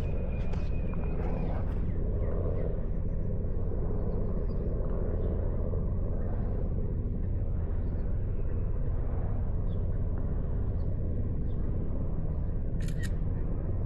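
Honda CBR650R's stock inline-four engine running steadily under way, a constant low rumble. A short double click near the end.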